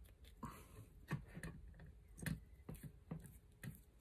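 Faint, irregular clicks and small taps from hands handling electrical wires and a plastic Wago lever connector, with a short rustle about half a second in.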